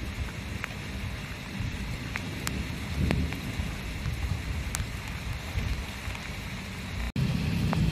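Steady rain falling, with scattered close drops ticking and a low rumble throughout that swells about three seconds in. The sound cuts out for an instant near the end.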